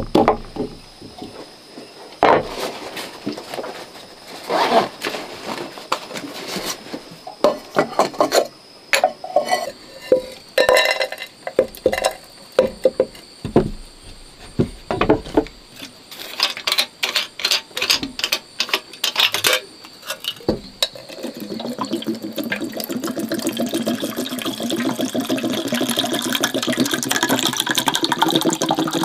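Knife handle pounding and knocking in a wooden cup, then small dry pieces clinking into a metal kettle. For the last several seconds, water pours steadily from a stainless steel flask into the kettle.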